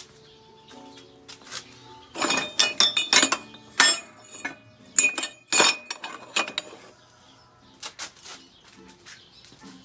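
Metal tube offcuts clanking and clinking against each other as they are handled in a cart, a cluster of sharp metal knocks from about two seconds in until about seven seconds in. Quiet background music plays under it.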